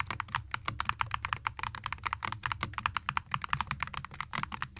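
Typing on a Dry Studio Ice Ring 63 RT magnetic gaming keyboard fitted with TTC KOM magnetic switches: a fast, even stream of light keystroke clacks, several a second.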